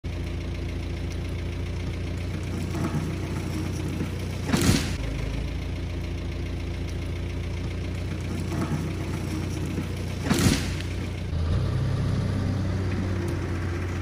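Ford 555 backhoe's diesel engine running steadily, growing louder about two-thirds of the way through. Two short, loud sharp sounds stand out over it, about six seconds apart.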